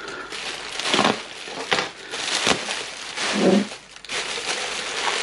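Plastic bubble wrap crinkling and rustling as it is handled and pulled open, in irregular swells with crackly peaks.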